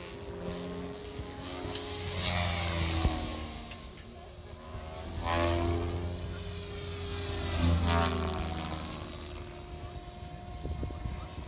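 XL Power Specter 520 radio-controlled aerobatic model airplane flying overhead, its motor and propeller making a steady drone that rises and falls in pitch and loudness. It swells three times, each time with a pitch glide, as the plane throttles through manoeuvres and passes by.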